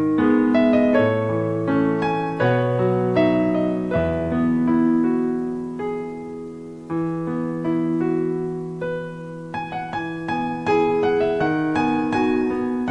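Background piano music: slow chords and single notes, each struck and left to ring.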